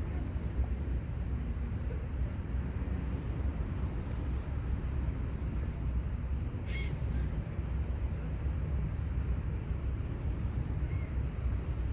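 Outdoor seaside ambience: a steady low rumble with faint high chirping in short, evenly repeated groups, and one short high call about seven seconds in.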